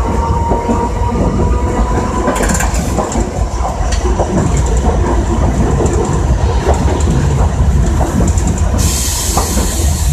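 Iyo Railway Moha 50 tram running along street track, heard from the driver's cab: a steady rumble of the running gear with irregular clicks and knocks of the wheels on the rails. A faint whine rises in pitch over the first couple of seconds, and a loud hiss starts abruptly near the end.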